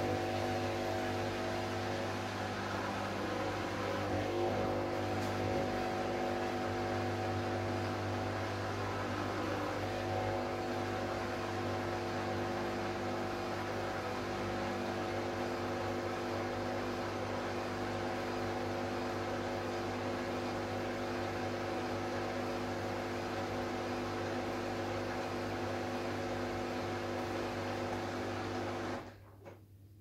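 Hoover Dynamic Next washing machine running with a steady hum, which cuts off suddenly near the end.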